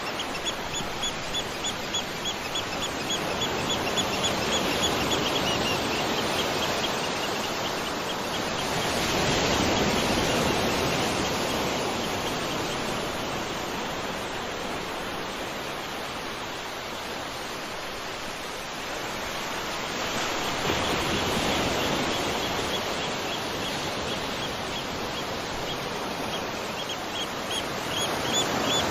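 Waterfall: steady rushing water that swells louder twice. A rapid trill of high chirps runs through the first few seconds and returns near the end.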